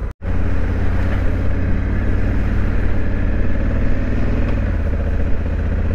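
Honda Africa Twin's 1084 cc parallel-twin engine running steadily as the motorcycle rides along a gravel road, with road and wind noise over it. The sound cuts out for a split second just after the start.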